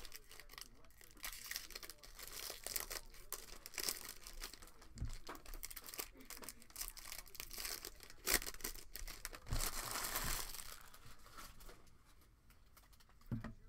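Silver foil wrapper of a 2020 Bowman Draft trading-card pack crinkling and tearing as it is opened by hand, with a longer rip about ten seconds in. It goes quieter near the end.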